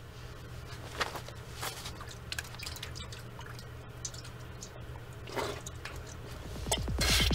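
Sparse wet drips and squelches over a low steady hum. Near the end a louder electronic glitch with sweeping pitch glides comes in.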